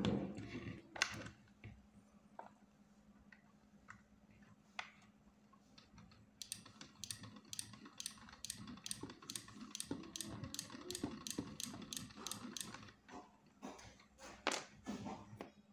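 Miniature PVC model diesel engine being hand-cranked: its plastic crank and gear mechanism clicks evenly, about three to four clicks a second, for some six seconds in the middle. A few knocks of the plastic model being handled come near the start.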